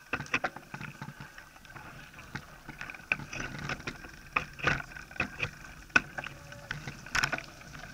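Mountain bike rattling and jolting over rough dirt and gravel ground: a run of irregular clicks and knocks over a low rumble of tyre and ride noise, with louder jolts near the middle and towards the end.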